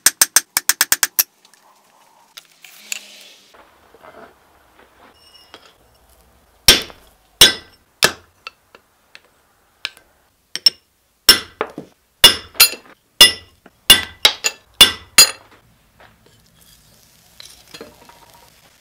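Blacksmith's hammer striking hot steel on an anvil, each blow ringing: a fast run of blows that stops about a second in, then after a pause a series of single strikes, spaced wide at first and coming about two a second near the end.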